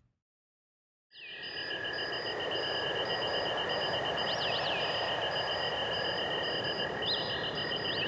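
Synthesized rainforest ambience played from Serum and other software-synth patches driven by a node sequencer, fading in after about a second of silence: a steady rain-like hiss under several high held tones, one trilling fast and one pulsing in a regular chirp pattern, like insects, with a few quick rising-and-falling bird-like calls.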